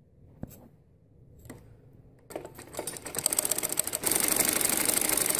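Domestic sewing machine stitching a folded hem in fabric. After a couple of light clicks, it starts about two seconds in and speeds up into a fast, steady clatter of stitches.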